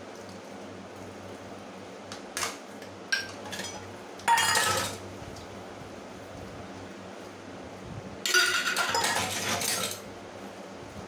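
Steel utensils and bowls clinking and clattering against each other and the stainless steel sink as they are hand-washed: a few sharp clinks, then two longer clattering stretches about four and eight seconds in, over a steady low hum.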